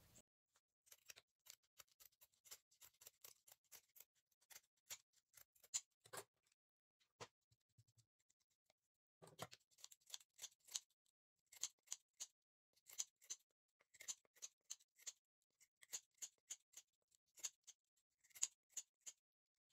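Large scissors snipping off burlap trimmings: many faint, short snips in quick succession, with a brief pause about halfway through.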